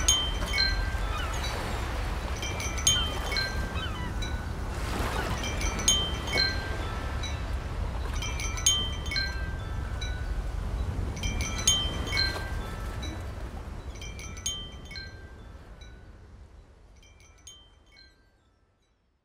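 Chimes ringing in clusters of several bright, ringing tones about every three seconds, over a steady low rumble; the whole sound fades out near the end.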